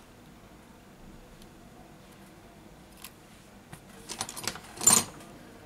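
Small hard clicks and a brief rattle of small parts or tools being handled, ending in one sharp click about five seconds in.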